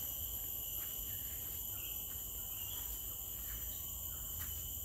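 A chorus of insects: several steady, high-pitched tones held without a break.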